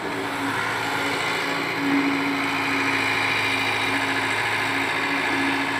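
Caterpillar 307 mini excavator's diesel engine running steadily as the machine digs soil, a continuous even hum.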